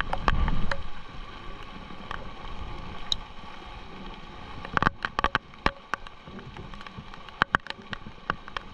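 Rain falling, a steady hiss with irregular sharp taps of drops striking close to the microphone, a few bunched together midway and near the end. A low rumble of wind or handling in the first second.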